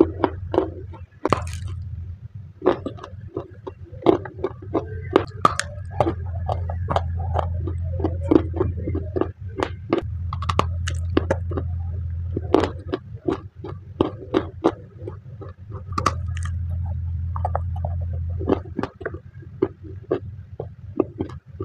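Close-miked crunching and chewing of dry chunks of khadi, a white edible clay: many sharp, irregular crunches as pieces are bitten and ground between the teeth. A steady low hum runs underneath and drops out a few times.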